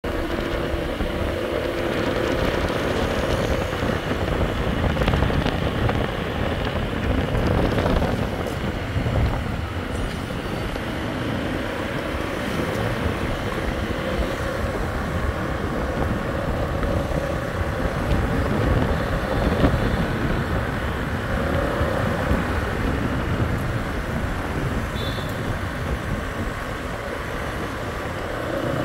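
Busy city street traffic: a steady mix of running vehicle engines and road noise, with a faint held engine hum at times.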